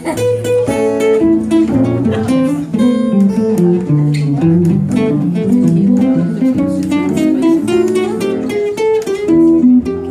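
Live guitar trio, a hollow-body archtop electric guitar and acoustic guitars, playing an instrumental piece together. Quick picked melody notes run over strummed chords.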